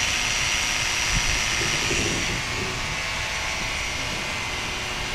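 Electric horse clippers running with a steady buzz while clipping around a horse's face; the thin high whine in it fades a little past halfway.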